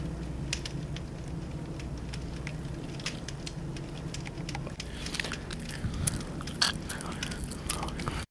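Crackling and clicking handling noise from a hand and a bushy beard rubbing close to the camcorder's microphone, over a steady low hum. The clicks come more often and louder from about halfway through.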